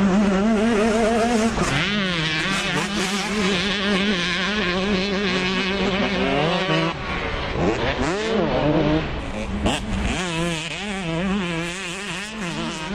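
Motocross dirt bike engine revving hard as it is ridden around the track, its pitch rising and falling with the throttle and gear changes, with sharp climbs in pitch twice in the second half.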